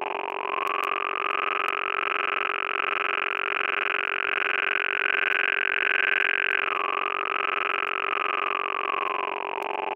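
Buzzy sawtooth synthesizer drone at a steady pitch, filtered through vowel-like resonators. Its bright resonance slides gradually upward, drops back suddenly about two-thirds of the way through, then sinks lower again near the end.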